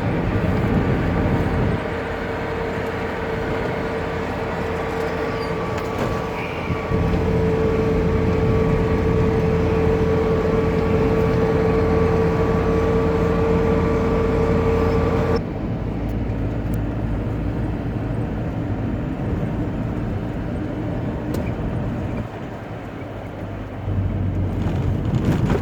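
Car driving at a steady speed on a highway, heard from inside the cabin: steady engine and tyre noise with a constant hum and a faint whine. About fifteen seconds in, the sound changes suddenly and becomes duller.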